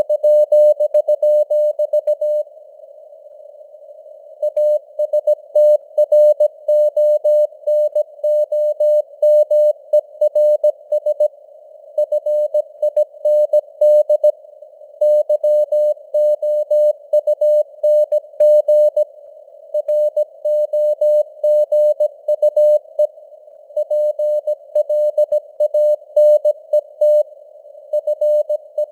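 Morse code (CW) sent at 17 words per minute: a single steady tone keyed into dots and dashes over a narrow band of simulated radio-receiver hiss. A break of about two seconds near the start separates words.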